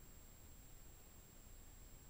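Near silence: a faint steady hiss with a thin, high, steady tone, and no engine or wind heard.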